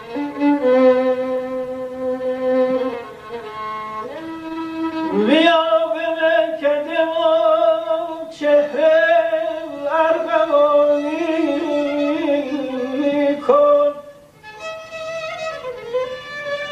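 Solo violin playing a Persian classical melody. It opens on long held notes, slides quickly upward about five seconds in, and goes on with wavering, ornamented notes. It breaks off briefly near the end and then resumes more softly.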